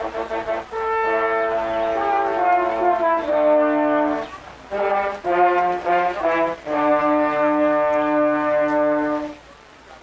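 French horn quartet playing chords: short detached notes alternate with sustained chords, and the piece ends on a long held chord that stops about nine and a half seconds in.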